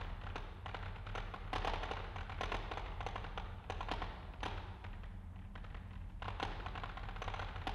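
Loose rocks rattling and clicking against one another as a bass shaker beneath the pile vibrates them, over a steady low drone from the shaker. The clatter comes in waves, thinning out about five seconds in and growing busier again soon after.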